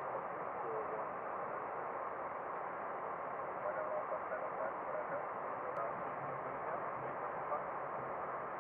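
Steady hiss of a cockpit radio audio feed between ATC transmissions: narrow and telephone-like, with no one transmitting.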